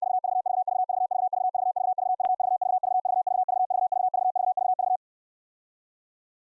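Morse code audio tone from a CW keyer sending an even run of dits, a single steady mid-pitched beep pulsed about six times a second, stopping about five seconds in. A single sharp click sounds about two seconds in.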